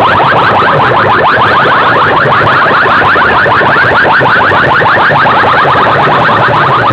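Competition-style electronic chirp tones played loud through DJ sound-box speaker stacks: rapid rising chirps, about ten a second, over a steady low hum.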